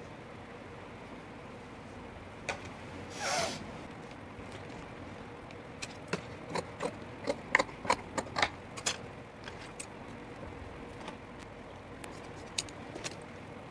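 Cut cloth pieces being handled and smoothed on a work table: one brief swish of fabric, then a run of sharp light clicks and taps. A few more clicks come near the end as tailor's scissors are handled.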